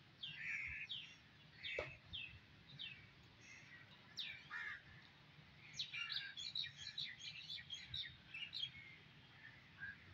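Birds chirping and calling, with a few falling calls in the first half and a quick run of chirps from about six seconds in, over a faint low background hum.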